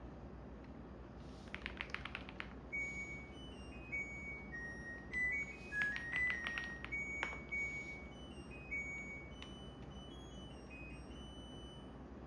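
Washing machine's end-of-cycle chime: a short melody of single high beeped notes stepping up and down in pitch over several seconds, signalling the wash is finished. Two short bursts of clicking come near the start and in the middle, over a low steady hum.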